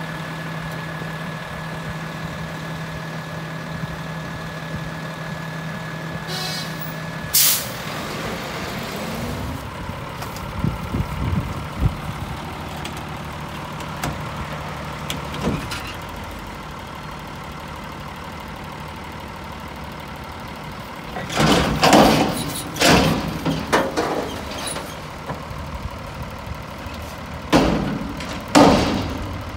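Diesel garbage trucks working: a steady engine and hydraulic whine for the first several seconds, broken by a sharp crack. Then a front-loader lifts a steel dumpster over its cab, with two clusters of loud metal bangs in the last third as the container is shaken out into the hopper.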